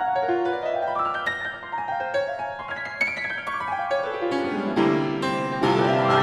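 Solo grand piano played fast: quick runs of notes, then a sweep climbing up from the bass over the last couple of seconds, growing louder toward the end.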